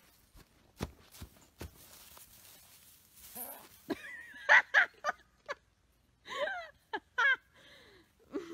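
A few soft hoof thumps from a young goat on straw, then a person laughing in short bursts, loudest about four to five seconds in and again near seven seconds.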